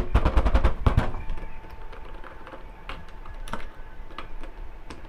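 Scattered sharp plastic clicks and light knocks from a car door trim panel and its retaining clips being handled, with a louder bout of thumps in the first second. The clips on this door are badly worn and have a lot of free play.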